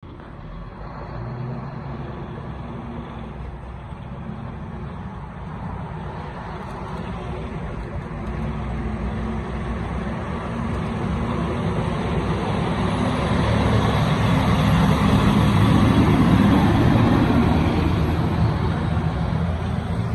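A fire engine's diesel engine running as the truck drives slowly past on a city street, with other traffic underneath. It grows steadily louder as it approaches, is loudest about three-quarters of the way through as it passes, then eases as it moves away. No siren sounds.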